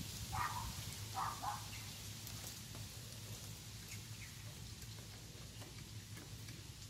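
Quiet outdoor ambience: three short chirp-like animal calls in the first second and a half, over a low steady hum and faint light ticking.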